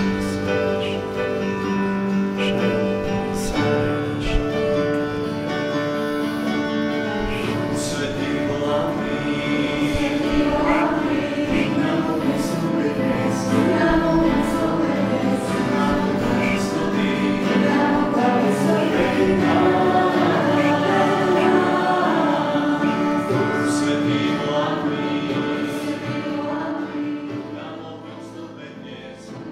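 Choir singing a sacred hymn, with sustained voices in several parts, fading out near the end.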